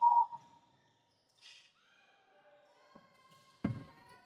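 Basketball game on a gym floor: a ball bouncing once near the end, with faint thin squeaks and a short high tone right at the start.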